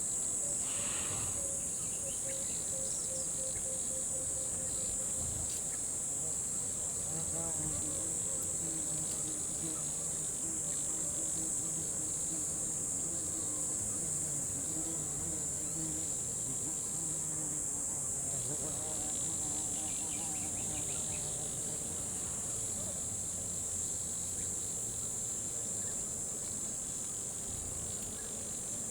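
Jungle ambience dominated by a dense, steady, high-pitched chorus of insects, with fainter, wavering lower-pitched animal calls coming and going beneath it.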